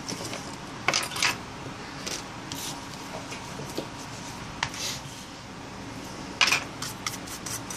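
Scattered light clicks and short scrapes of hands and a tool working over an LG Nexus 5's display frame, clearing off leftover glass crumbs. A quick run of scrapes about six and a half seconds in is the loudest.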